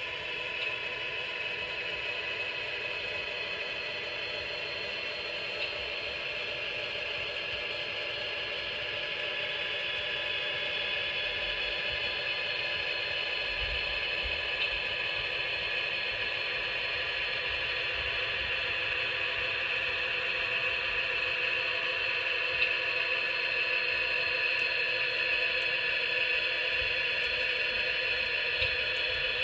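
HO scale model freight train of gondola cars running along the track: a steady mechanical whirring rattle of the train's drive and wheels on the rails, a little louder in the second half.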